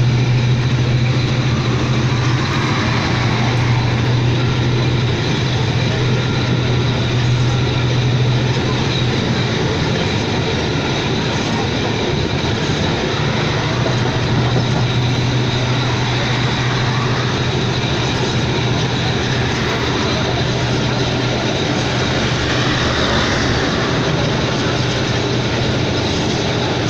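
Passenger train running along the line, heard from inside the carriage: a steady, unbroken running noise with a constant low hum beneath it.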